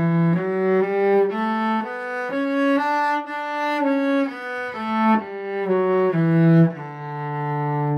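Cello bowed through a one-octave D major scale: single notes step up from low D to the D an octave above, come back down, and settle on a long held low D near the end.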